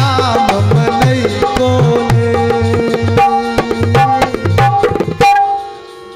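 Harmonium and hand drum playing a fast rhythmic instrumental passage of a devotional bhajan, the drum's low strokes bending in pitch. About five seconds in the drumming stops and a harmonium chord is held alone, fading.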